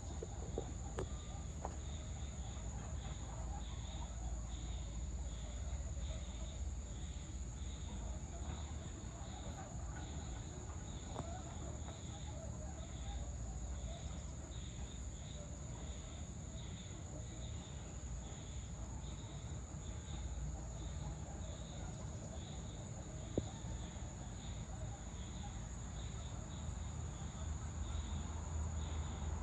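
Insects calling in chorus: a steady high-pitched buzz with a chirp that pulses about twice a second, over a low background rumble.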